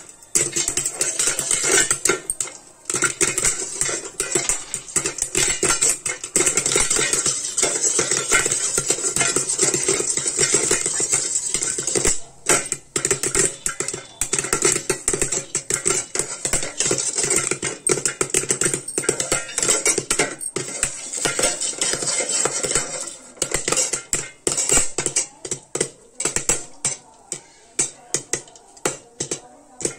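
Corn kernels popping fast and densely in a covered aluminium kadhai, the popcorn knocking against the pan and the plate used as a lid. Near the end the pops thin out to scattered single ones, the sign that the popping is nearly done.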